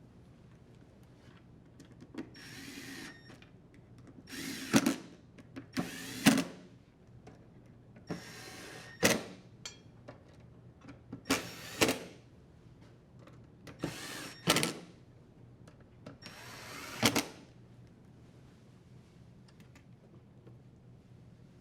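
Drill driver with a Phillips bit driving screws into a dryer's door frame in seven short runs, each about a second long, several ending in a sharp click as the screw seats.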